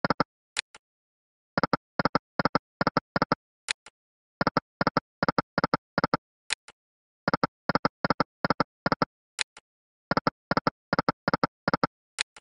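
Online slot game sound effects: a short high click as each spin starts, then five quick ticks as the five reels stop one after another. This repeats four times, for four spins in a row.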